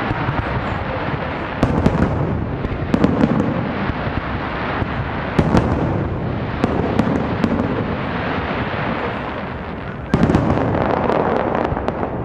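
Aerial fireworks display: a continuous barrage of shell bursts, dense with sharp crackling pops over repeated deep booms, with a louder burst about ten seconds in.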